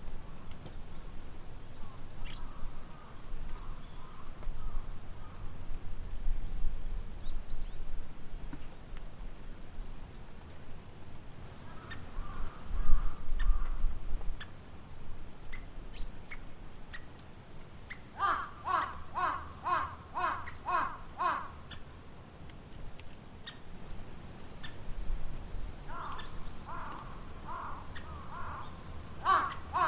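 A woodpecker calling in rapid runs of harsh, evenly spaced notes, about three a second: faint at first, then a clear run of about ten notes starting around 18 seconds in, and another run near the end. A low rumble underlies it, loudest about 13 seconds in.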